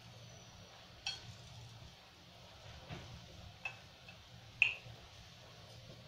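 Chopsticks tapping and clicking against the pot and the oden ingredients as they are arranged in the broth: a handful of light clicks, the loudest about two-thirds of the way through, with a brief ring.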